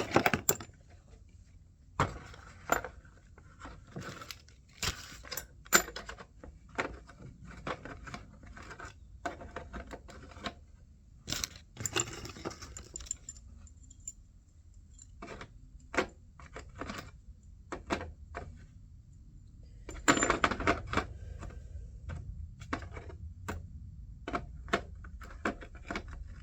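Metal hand tools clinking and clattering as they are put away, in scattered knocks and clinks with a busier stretch near the end.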